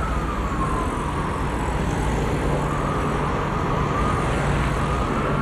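Emergency-vehicle siren on a slow wail, its pitch falling over about two seconds and then rising again, over steady city traffic noise.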